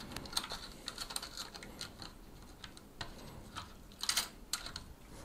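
Sparse light clicks and taps as the Cooler Master Hyper 212 LED CPU cooler is centred and settled on its clip-on mounting bracket over the CPU socket, with a quick cluster of clicks about four seconds in.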